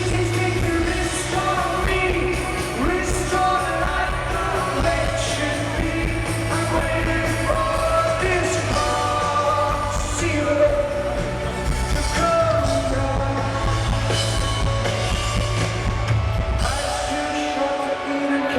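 Live rock band playing with sung vocals; the heavy bass drops out near the end.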